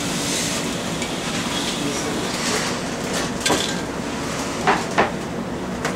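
A few light taps and clicks as crisp toasted bread pieces are set down on a ceramic plate, over a steady background hiss.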